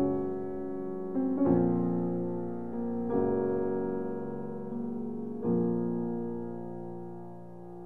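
Slow, gentle piano music: four sustained chords, struck about every one and a half to two and a half seconds and each left to ring and fade.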